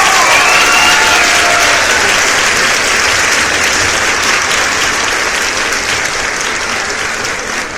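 Crowd applauding, with a few cheering voices in the first couple of seconds; the clapping continues steadily and begins to fade near the end.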